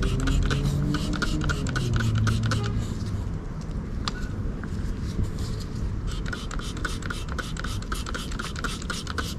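A brush scrubbing the dirty metal hood hinges with cleaner in quick back-and-forth strokes, several a second. The strokes pause briefly midway, then resume. A low hum fades out over the first few seconds.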